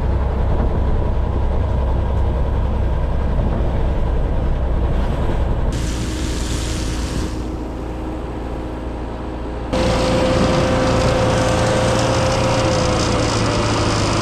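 Heavy truck engine running steadily with a low hum. The sound changes abruptly twice, and a steady whine joins it for the last few seconds.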